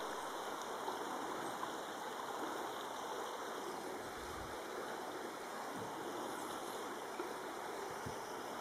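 River water flowing steadily over stones, an even rushing.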